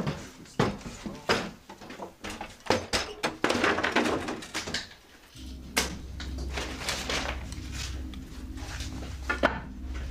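Irregular sharp clicks and knocks with rustling of clothing and gear, then a low steady rumble starting about five seconds in.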